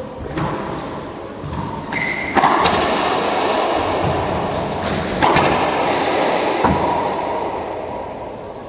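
Racquetball rally: several sharp cracks of the ball off racquets and the court walls, each ringing on in the echo of the enclosed court, the loudest about two and a half and five seconds in. A short high squeak, likely sneakers on the wood floor, comes about two seconds in.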